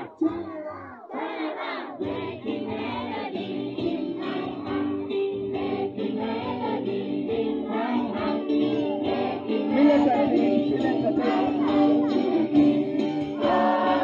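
Lively music with a crowd of young voices singing together, held notes over a steady backing; it starts with a couple of short shouted phrases and grows a little louder about ten seconds in.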